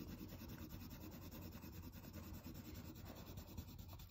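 Brown coloured pencil shading on paper: a faint, continuous scratchy rubbing of quick back-and-forth strokes.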